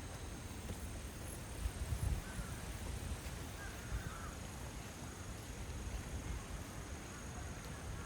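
Gusty wind rumbling on the microphone in a typhoon, with a few faint bird calls, one at about two seconds in and another at about four.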